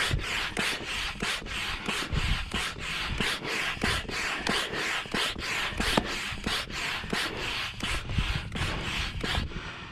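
Hand pump pushing air through its hose into an inflatable stand-up paddleboard, with quick even strokes of rushing air, about three a second; these are the last strokes topping up the board's pressure. The pumping stops just before the end.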